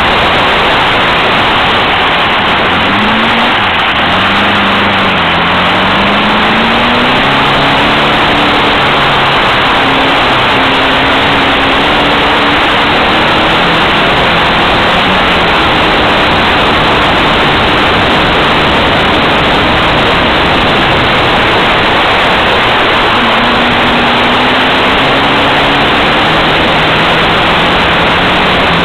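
Onboard sound of an open-wheel race car at speed: a loud steady rush of wind and road noise over the microphone, with the engine note underneath climbing and dropping back several times as it goes up and down the revs through the gears.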